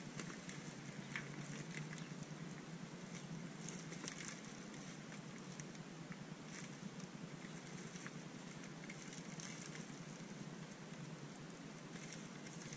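Faint, irregular crinkling and crackling of plastic packaging being handled and pulled open by hand.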